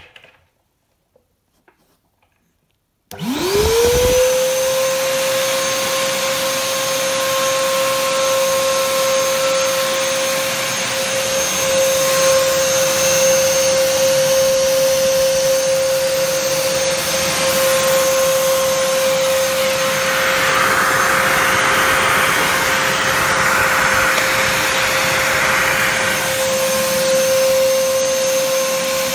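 Zilan water-filter vacuum cleaner switched on about three seconds in, its motor spinning up quickly to a steady high whine and running on. A louder hissing rush of air comes in for several seconds past the middle.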